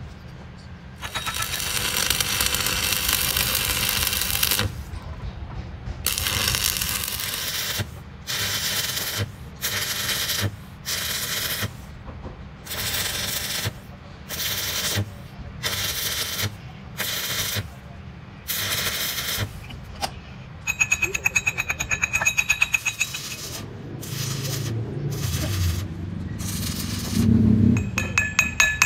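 Stick arc welding building up weld metal on a broken pinion gear's teeth: the arc crackles and hisses, in a long run at first and then in short bursts about once a second. From about two-thirds of the way in, a chipping hammer taps the fresh weld, giving quick ringing metallic clinks.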